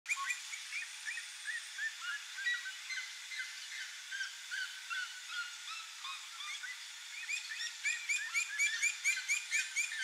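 Red-legged seriema singing: a long series of short notes, each rising and falling in pitch. In the last few seconds the notes come faster and louder, about six a second.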